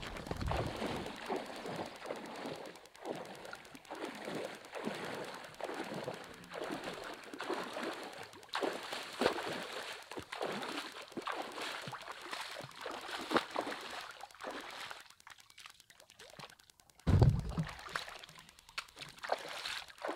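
Water splashing and sloshing as a person wades through shallow river water, towing a canoe by its bow line, in quick irregular strokes. The splashing thins out about fifteen seconds in, and a single loud low thump follows a couple of seconds later.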